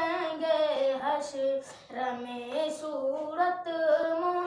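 A boy singing an Urdu naat unaccompanied, drawing out long wavering notes between the words of a line, with a short break about two seconds in.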